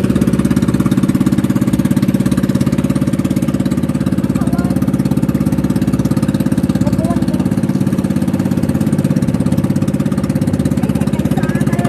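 Engine of a small motorized outrigger boat running at a steady speed with the boat under way, a constant low, evenly pulsing drone.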